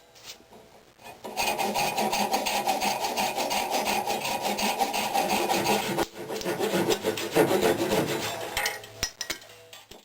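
Hand file strokes scraping steadily and quickly across the knife, with a short break a little past halfway and tailing off near the end.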